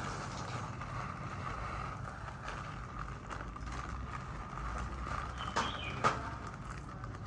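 Coarse salt pouring from a plastic bag onto a piece of moray eel bedded in salt in a steel tray: a steady patter of granules with the bag crinkling, and a couple of sharper clicks about five and a half to six seconds in.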